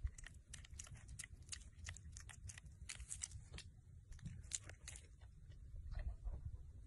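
A piglet smacking and chewing: rapid, irregular crisp clicks, thickest in the first few seconds, over a low rumble.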